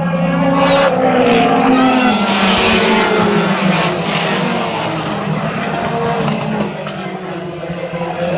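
A pack of race cars running laps on a short oval, the engines loud together, their pitch rising and falling as the cars pass. The sound eases slightly near the end.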